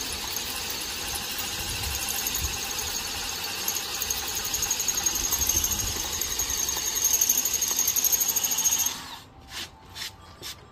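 Electric hand drill boring a hole into the metal of a York rake with a cheap drill bit, the hole lubricated with oil. The drill runs with a steady high whine, grows louder near the end, and stops about nine seconds in, followed by a few light clicks.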